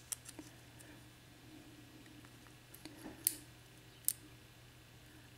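About five sharp, quiet clicks of small metal lock parts and tools as the top pins are worked out of a disassembled Dorma mortise cylinder's pin chambers, the loudest a little after the middle.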